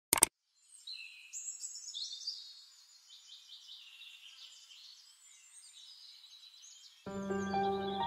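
A mouse-click sound effect right at the start, then small birds chirping and singing in high, quick, gliding calls. Soft ambient music with a steady low drone comes in near the end.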